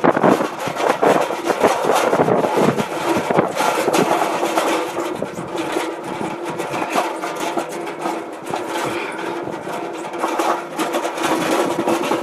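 Utility cart driving, with continuous rattling and knocking and a steady hum that sets in about five seconds in.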